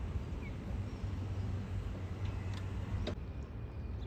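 Steady low outdoor rumble with a few faint chirps and clicks; the sound changes abruptly about three seconds in.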